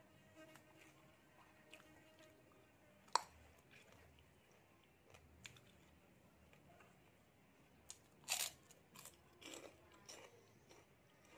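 Eating sounds close to the microphone: a sharp single click about three seconds in, then a run of crackly crunches near the end as a piece of crisp Thai pork rind (khaep mu) is bitten and chewed.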